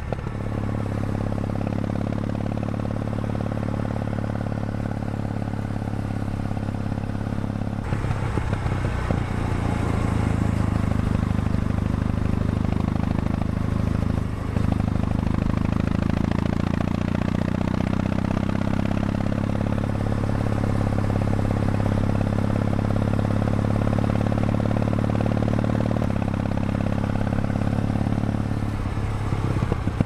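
Kawasaki W800's air-cooled parallel-twin engine running steadily as the motorcycle cruises on the road, with road and wind noise. The sound gets louder about eight seconds in and dips briefly about halfway through.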